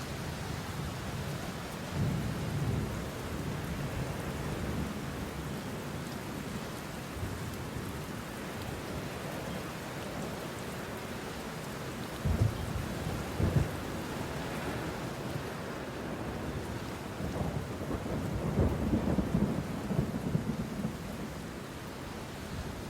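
Deep rumbling booms over a steady hiss: one about two seconds in, two sharper ones around the middle, and a longer rolling rumble near the end.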